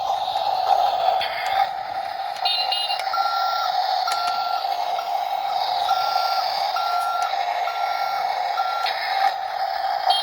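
Electronic sound effects from a toy vehicle: a steady hum with a short beep repeating about one and a half times a second, starting about three seconds in.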